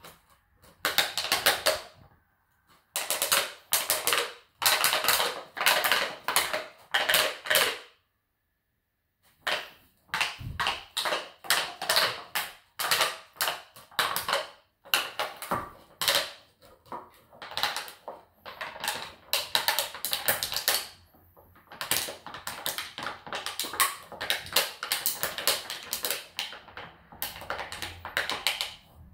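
A puppy chewing an empty plastic water bottle: rapid crackling and crinkling of the plastic in bursts, broken by short pauses and one silent gap of about a second and a half a little over a quarter of the way in.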